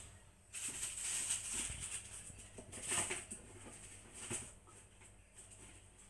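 Birds scuffling and flapping their wings against a window pane, in irregular bursts of rustling and scratching. The busiest flurries come about a second in and again around three seconds.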